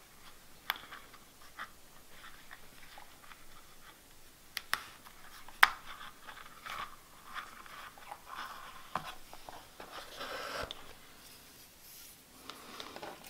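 Hands handling a leather Traveler's Notebook cover and its elastic cord while fitting a small charm onto it: scattered small clicks and taps with soft rubbing and rustling, and a longer rustle about ten seconds in.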